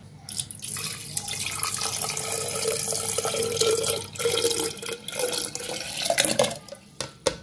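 Buttermilk poured in a thick stream from a plastic bowl into a glass blender jar, splashing steadily with a brief dip about four seconds in. Two sharp clicks near the end.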